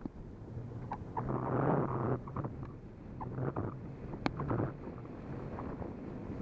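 Wind buffeting the microphone in irregular gusts over a low steady hum while a bikeshare bicycle is ridden, with a few sharp clicks and rattles, one clear click about four seconds in.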